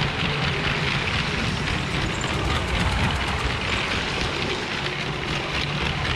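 LEGO Maersk freight train 10219 running along plastic track, a steady rumble and hiss from its motor and wheels.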